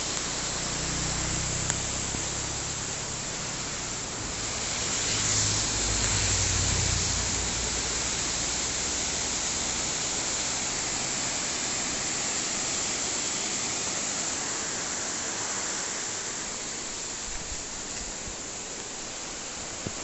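Waterfall rushing with a heavy, steady flow, swollen by heavy rain. A low rumble rises and fades about five to seven seconds in.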